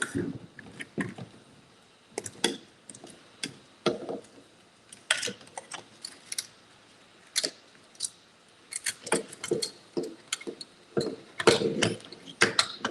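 Irregular clicks, taps and rattles of small plastic and metal parts being handled and pried apart while a toy RC car is dismantled, busiest near the end.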